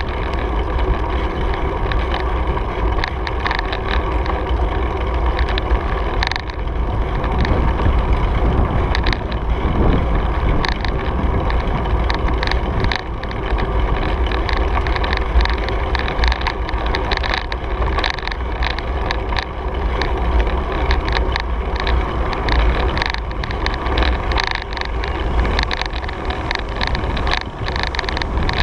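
Wind buffeting the microphone of a camera on a moving bicycle, a steady rumble with the tyres on pavement, broken by frequent small clicks and rattles from the bike over bumps in the path.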